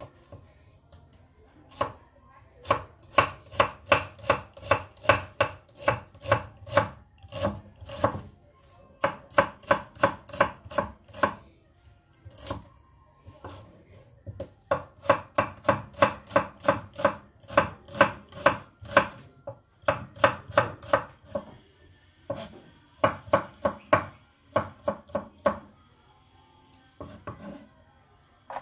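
Kitchen knife slicing red onions on a cutting board: quick runs of chopping strokes, about three a second, broken by short pauses.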